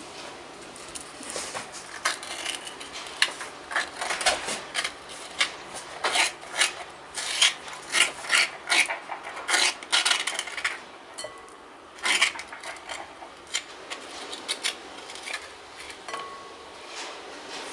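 Metal spoon scraping the flesh out of a ripe avocado half: a run of short, irregular scrapes along the inside of the skin, thickest in the first half and sparser near the end.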